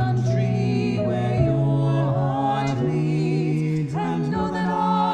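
Music: a voice singing a slow, gentle song in long held notes that waver slightly in pitch.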